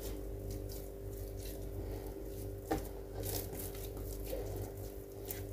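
Soft yeast dough being squeezed and rounded into balls by hand: faint squishing and light pats, with one sharper tap a little before three seconds in, over a steady low hum.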